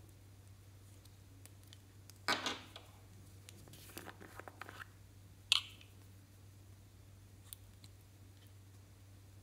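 A plastic spatula scraping makeup out of a small plastic pot, with short scraping and rustling sounds about two seconds in and again around four seconds in, and a sharp plastic click a little past halfway. A faint low hum runs underneath.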